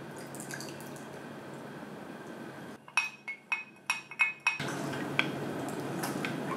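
Liquid sauce trickling from a glass measuring cup into a small glass bowl. About three seconds in comes a quick run of about seven ringing glassy clinks as a wooden spoon knocks and scrapes minced garlic out of the measuring cup. Near the end, the spoon stirs the thick sauce in the glass bowl with soft wet squishing.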